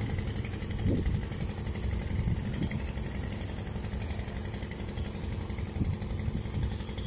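An unseen engine idling at a steady, even speed, giving a constant low hum, with two brief low swells about a second in and near the end.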